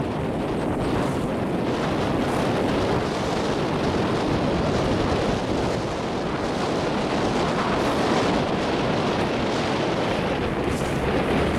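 Strong wind buffeting the microphone over water rushing and slapping past the hull of a small motorboat under way on choppy water; a steady noise with no clear breaks.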